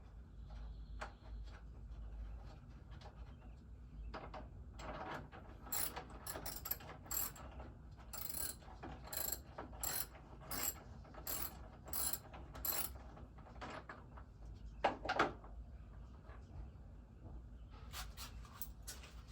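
Ratchet wrench clicking in a run of short strokes, about two a second, with a louder metallic clatter partway through and more clicks near the end.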